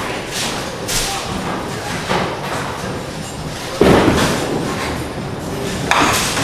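A duckpin bowling ball thuds onto the wooden lane at release, about four seconds in, then rolls away. Lighter knocks and clatter from the bowling alley come before and after it.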